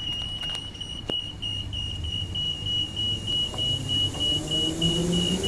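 A railway crossing warning beeper sounding a steady high-pitched beep, a few pulses a second, over a low engine hum. In the last second or two an electric train's motor whine starts to rise in pitch.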